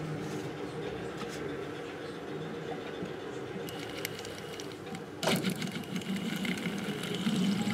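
A small machine running steadily with a low hum. About five seconds in it gets louder, adding a fast, even rattle.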